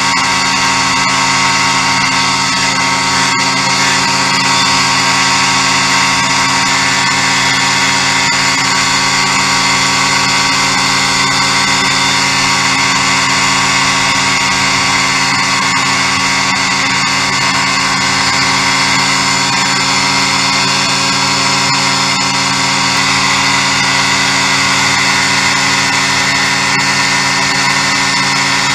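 Ultralight aircraft engine and propeller droning at a steady cruise setting, with a constant rush of wind noise over it.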